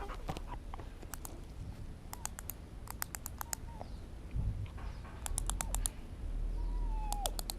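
Brittany dog sniffing hard in quick runs of short puffs, several runs a few seconds apart, as it works along scent tins searching for truffle odour.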